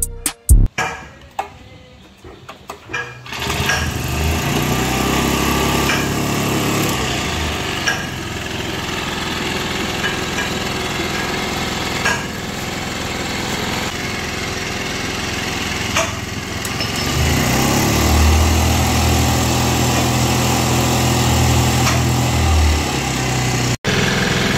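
Small gasoline engine of a MARATA MR431-3Z knapsack mist duster being started: a few sharp sounds and sputtering clicks, then it catches about three seconds in and runs steadily. About three quarters through it runs louder for some five seconds, then drops back.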